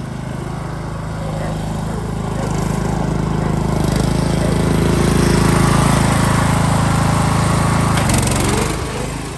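A Craftsman riding lawn mower's 17.5-horsepower engine running steadily. It grows louder over the first five seconds or so, then falls in pitch and fades near the end as it is throttled down.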